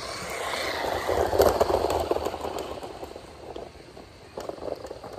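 A scooter rides through a shallow mud puddle, its wheels splashing and spraying water. The splash is loudest about a second and a half in and dies away over the next two seconds.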